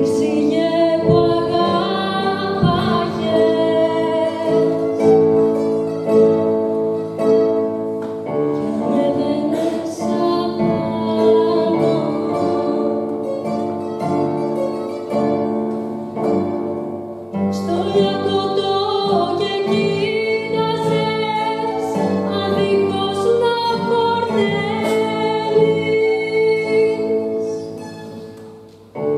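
A woman singing into a microphone, accompanied by piano, bouzouki and guitars; the music dies away just before the end.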